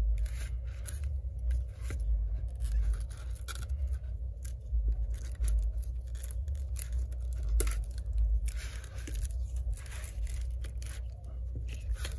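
Cracked iPad glass digitizer being pried and peeled off the tablet's frame by gloved hands: repeated scraping, crackling and adhesive tearing with small clicks, over a low steady rumble.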